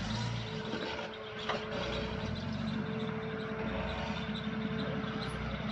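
Jeep Cherokee XJ engine running steadily as it crawls down a rock ledge in four-wheel-drive low range, with a steady whine and a faint knock or two.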